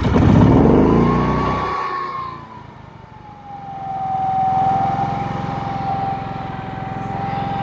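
GENMAX GM9000iED inverter generator's engine just after an electric start on propane: it runs up fast, drops back briefly about two and a half seconds in, then picks up again and settles into steady running with a constant high whine.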